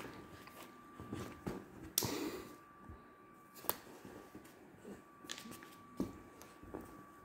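A dog shaking and tugging a rope toy in its mouth: faint rustling and scuffling, with a few sharp knocks.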